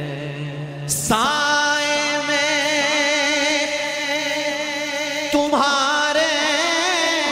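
Naat singing: a voice holding long, drawn-out notes with a wavering vibrato, with a new held note beginning about a second in and another a little after five seconds.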